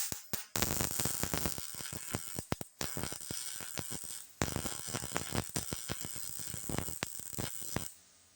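Welding arc crackling and sizzling as a patch panel is tack-welded into a sheet-metal pickup bedside. It comes in runs with short breaks about 3 and 4 seconds in, then stops about 8 seconds in.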